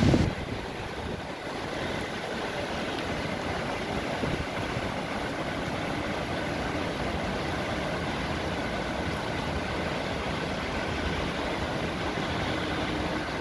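Steady rain over a city street with a low traffic hum beneath it, an even hiss. A brief low thump at the very start.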